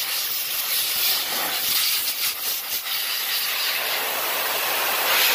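Compressed air hissing steadily from a blow-gun nozzle as it blasts dirt off a motorcycle cylinder head and valve covers, cutting off sharply at the end.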